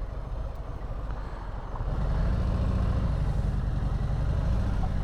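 Harley-Davidson Sport Glide's V-twin engine through a Screamin' Eagle exhaust, heard from the rider's seat. It runs low and steady, then gets louder about two seconds in as the bike pulls harder.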